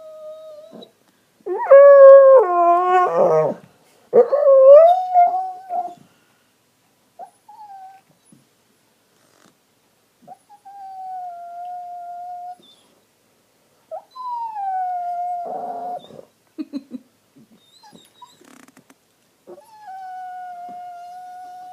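Dog whining and howling in a series of long, drawn-out calls, the loudest and most wavering about two seconds in, then quieter, steadier whines with pauses between. It is a complaint about his bone, stuck out of reach under the sofa.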